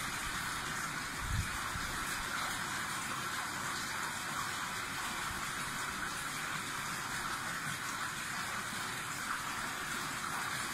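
Steady rush of moving water in a koi pond, with a single low thump about a second and a half in.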